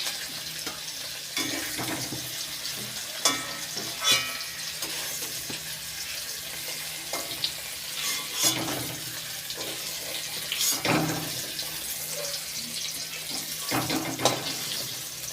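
Hot oil sizzling in a kadai as lightly fried paneer pieces are lifted out, with a spatula knocking and scraping against the pan several times.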